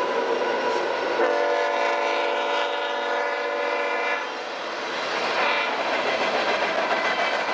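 Union Pacific freight locomotive's air horn sounding one steady chord for about three seconds, starting about a second in, over the rumble and clatter of empty flat cars rolling past on the rails; after the horn stops only the rolling cars are heard.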